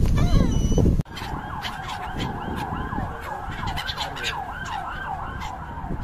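Gulls calling. The first second is a loud low rushing noise with a few cries; then it drops abruptly, and a fast series of rising-and-falling cries follows, about two a second, with other calls overlapping.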